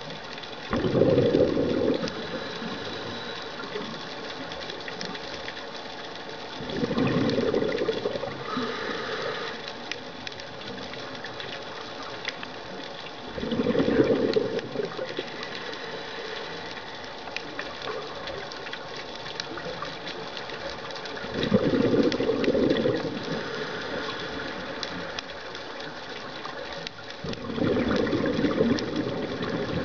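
Scuba diver breathing through a regulator underwater: exhaled bubbles rush out of the exhaust valve in five bursts, one roughly every seven seconds, over a steady underwater hiss.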